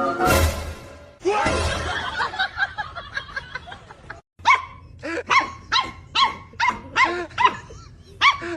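A dog barking again and again in short, sharp barks. After a brief break about four seconds in, the barks come regularly at about two a second.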